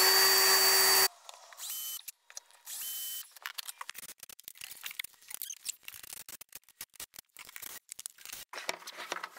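Cordless drill driving lag bolts through a wall bracket into the studs: it runs at full speed for about a second, its pitch rising as it spins up, and stops abruptly, followed by two brief trigger pulls. Faint scattered clicks and knocks follow.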